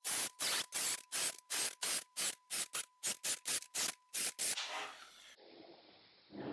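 Cordless drill boring a row of small holes through beech plywood, in a quick run of about fifteen short bursts, three to four a second. A softer rubbing noise follows near the end.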